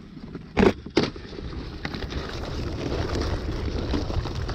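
Handling noise on a kayak: two sharp knocks within the first second, then a steady rustle with many small clicks as the camera and a plastic box of live shore crabs are moved about.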